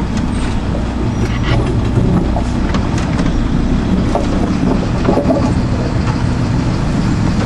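Fire truck's diesel engine running at low speed, heard from inside the cab, a steady low rumble. Over it the cab rattles and overhanging branches brush and knock against the windshield and body in scattered clicks.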